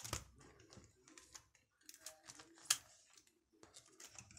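Photocards and clear plastic binder sleeves being handled: an uneven run of light taps, clicks and plastic rustles, with a sharper click just after the start and another a little before three seconds in.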